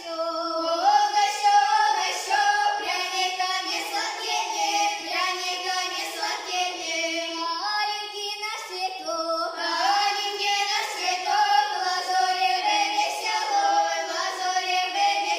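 A girls' folk-song quintet singing a Russian folk song together in several harmonised parts, the voices moving through continuous phrases.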